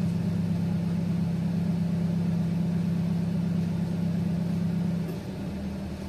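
A steady low machine hum, like a motor running, that drops in level and changes character about five seconds in.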